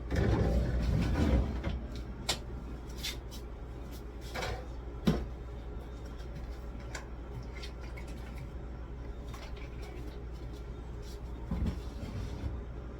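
Groceries being handled and packed into a refrigerator: a clattering, rustling stretch at the start, then scattered knocks and clicks of containers and fridge shelves or door bins.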